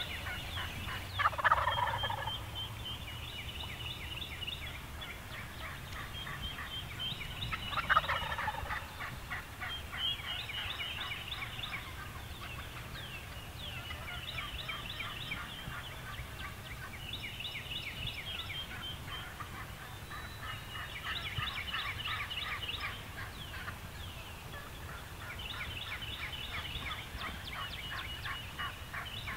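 Wild turkey gobbler gobbling twice, about a second and a half in and again around eight seconds: loud, rapid, rattling calls that fall in pitch. High trilling songs of small birds repeat throughout.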